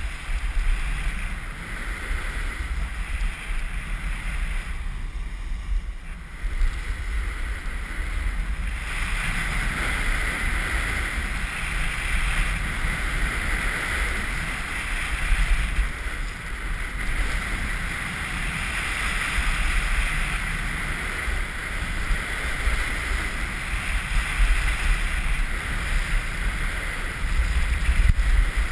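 Wind rushing over an action camera's microphone, with the steady hissing scrape of a snowboard edge carving across packed snow. The scraping hiss drops away for a few seconds about five seconds in, then comes back stronger.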